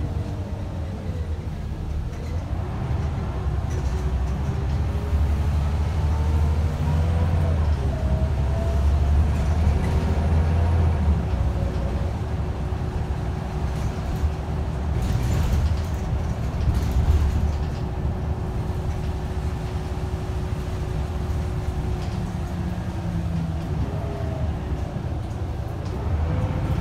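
Scania L94UB bus's rear-mounted 9-litre five-cylinder diesel and drivetrain, heard from inside the saloon as the bus drives along. A deep engine rumble under a whining tone that rises and falls several times as the bus pulls away and slows, holding steady for several seconds in the middle while cruising.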